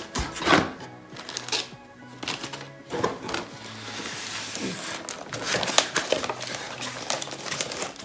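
Plastic bag crinkling and foam packing rubbing as a computer power supply is worked loose and lifted out of its cardboard box, with a string of short handling knocks and a longer rustle about halfway through, over background music.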